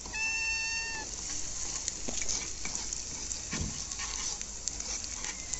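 Curry spice base frying and sizzling in a non-stick pan while a metal spoon stirs it, with small clicks of the spoon against the pan. A high, steady-pitched call sounds for about the first second.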